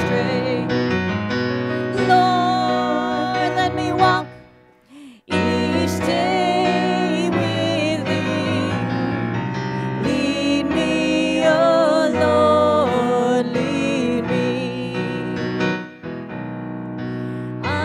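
A gospel hymn sung by a woman's amplified solo voice with grand piano accompaniment. There is a brief break of about a second, roughly four seconds in, before the singing and piano resume.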